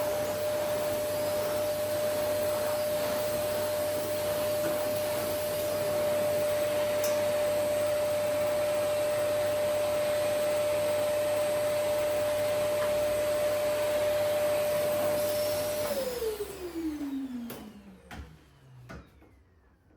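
Vacuum cleaner motor running steadily with a constant whine over its hiss. About 16 seconds in, the whine falls in pitch and the noise dies away as the motor spins down, followed by a few light clicks near the end.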